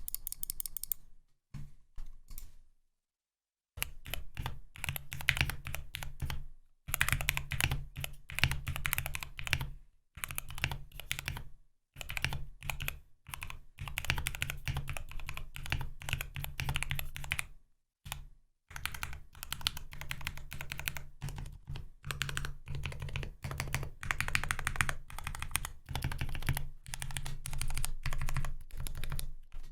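Typing on a custom 60% mechanical keyboard in a wooden case, with Gateron Milky Yellow linear switches lubed with Krytox 205g0. A few scattered keystrokes come first, then from about four seconds in fast, near-continuous typing with a few brief pauses.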